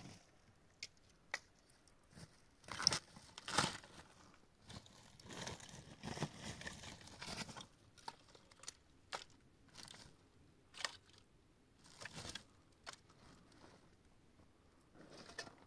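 Irregular crunching and rustling handling sounds with scattered sharp clicks, loudest in two clusters of bursts in the first half.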